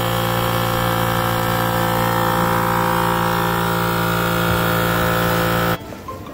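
FoodSaver vacuum sealer's pump running with a steady hum, drawing the air out of a bag of diced onions and shrinking it tight. The pump stops abruptly near the end as the machine switches over to sealing.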